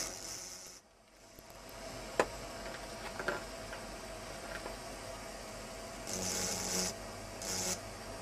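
Hand-held engraving drill cutting into an optical crystal glass bottle: short gritty hissing bursts each time the bit bites the glass, with the small motor running steadily between cuts.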